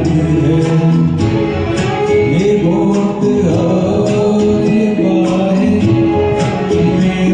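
Karaoke music: a man singing a Hindi film song over a recorded backing track, with long held notes and a light, regular beat.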